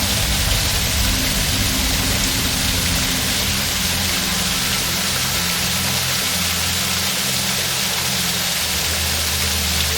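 Waterfall rushing steadily, overlaid with soft background music of held low notes that shift every second or two.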